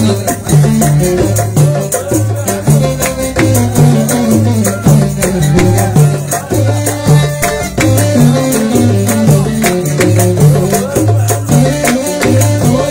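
Live Touati folk music: a Korg keyboard plays a repeating low bass figure, with steady rattle-like percussion over it.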